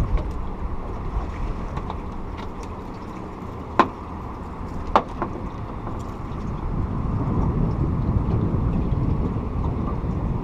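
Steady running noise of a fishing boat's motor and water, with two sharp clicks about a second apart near the middle. The noise grows louder in the second half.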